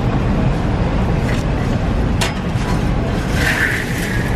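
Chestnuts being stir-fried in hot black quartz sand in an iron wok, turned with a metal spatula: the sand rustles and scrapes, with a couple of sharp clicks of the spatula against the wok and a hissing shush of sand near the end, over a steady low rumble.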